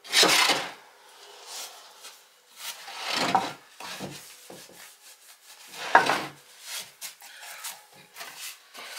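Wet rag rubbed over a freshly glued wooden holder in several separate strokes, wiping away squeezed-out wood glue; the loudest stroke comes at the start, with others about three and six seconds in.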